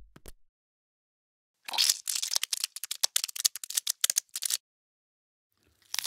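A cartoon sound effect: a rapid run of dry clicks and rattles, lasting about three seconds and starting about two seconds in, with silence around it. A wet squish begins right at the end.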